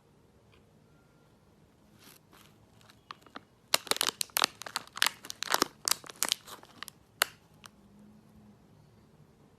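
Quick, irregular crinkling and crackling, like something such as plastic or paper being crumpled or torn. It starts faintly about two seconds in, is loudest in the middle, and stops after about seven seconds.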